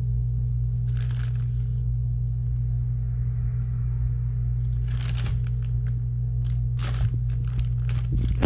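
A plastic zip-top bag of crushed corn flakes crinkling and crunching as it is handled, in short rustling bursts about a second in and then repeatedly through the second half. A steady low hum runs underneath throughout and is the loudest sound.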